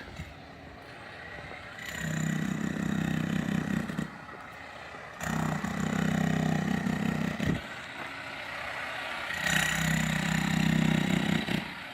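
An engine revs up three times, each for about two seconds, and runs more quietly between the revs.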